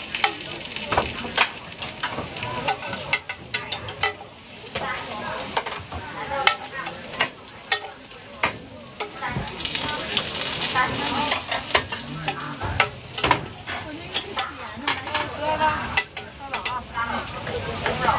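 Egg burgers frying on a hot griddle, with a steady sizzle and frequent sharp clicks and scrapes of a metal utensil against the pan. The sizzle swells about ten seconds in.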